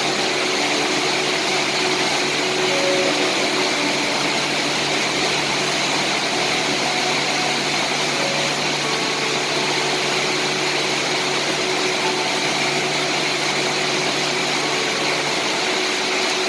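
Steady rain falling, an even hiss with a faint steady low hum underneath.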